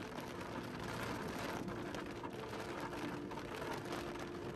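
Rain pattering on the windshield and body of a moving truck, heard from inside the cab as a steady hiss with the vehicle's running noise underneath.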